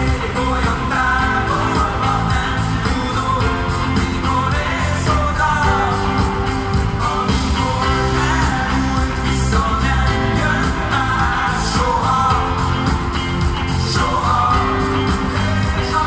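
A live rock band playing: a male singer over drums, electric guitars and keyboards, with a steady bass line and cymbals, heard from the audience in a large arena.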